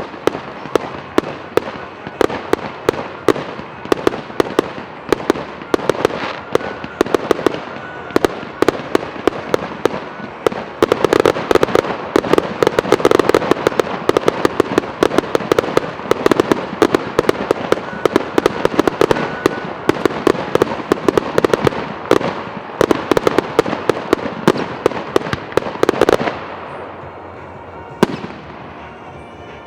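Fireworks display: a rapid barrage of aerial shells bursting in quick succession, many sharp bangs and crackles overlapping, thickest in the middle. The barrage stops about four seconds before the end, with one last bang after it.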